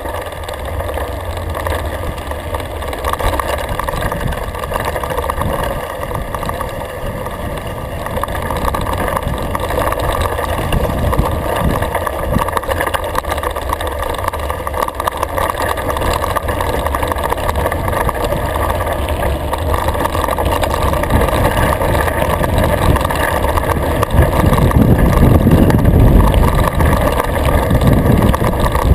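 Mountain bike rolling fast down a gravel track, picked up by a GoPro riding along: a steady, muffled rumble of tyres on gravel mixed with wind, louder in the last few seconds.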